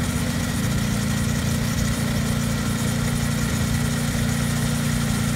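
Compressed air blowing the water out of a pressure-washer hose line, a steady hiss of air and spray from the open fitting over the even hum of an engine running.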